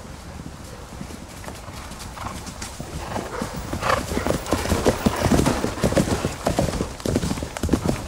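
Hooves of several horses galloping on grass, growing louder about halfway through as they pass close by.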